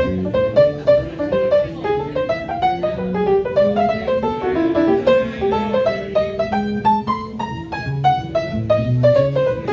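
Small jazz combo playing, with piano notes over bass and drums.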